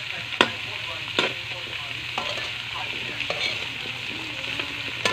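Cubed squash and green beans stir-frying in hot oil in a metal wok: a steady sizzle, with a metal spatula scraping and clinking against the pan a few times, about once a second.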